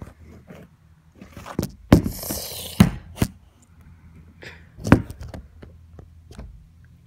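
A phone on a flimsy tripod being handled and repositioned: a handful of sharp knocks and clicks, with a brief rustle about two seconds in.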